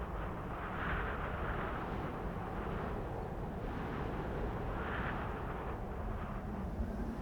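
Cold wind blowing on a snowy night: a steady low rumble with gusts that rise and fall, swelling about a second in and again around five seconds in.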